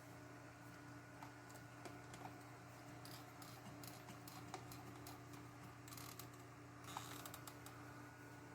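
Faint, scattered clicks and light scrapes of a small screwdriver and tiny screws being worked into the plastic parts of an RC monster truck, over a steady low hum. The clicking is a little busier about seven seconds in.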